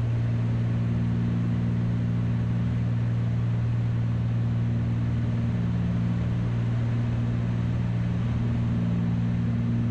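Cessna 310's two six-cylinder piston engines and propellers droning steadily, heard inside the cockpit in flight.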